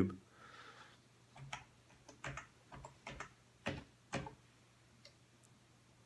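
Keys on a Panasonic KX-W60TH thermal typewriter's keyboard being pressed one at a time: a string of about seven light, unevenly spaced clicks as a word is typed into the machine's memory.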